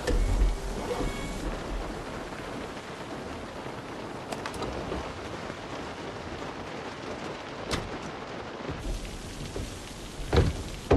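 Heavy storm rain pouring steadily, with a low rumble of thunder at the start. A couple of sharp cracks come midway, and two loud thuds near the end.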